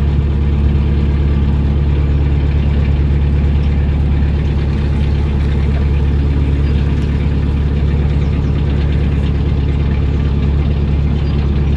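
Narrowboat's engine running steadily at low cruising speed, a constant low drone.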